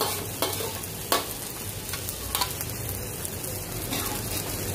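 Parboiled lamb sizzling in a pan of curry spices as it is stirred, with a spoon knocking and scraping against the pan a few times.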